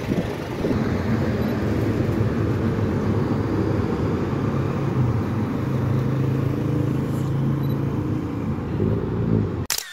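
Road traffic: motor vehicle engines running close by, with a steady low engine hum that holds its pitch through the middle. The sound cuts off suddenly just before the end.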